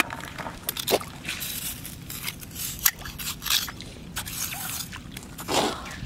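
Wet squelching, scraping and dripping in wet sand and shallow tidal water as rubber boots, hands and metal crab tongs work the mud. Irregular clicks, with a louder slosh about five and a half seconds in.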